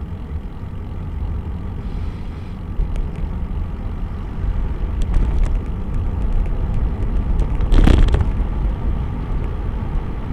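Wind buffeting the microphone of a bike-mounted camera on a fast descent: a steady low rumble, with a brief louder rush about eight seconds in.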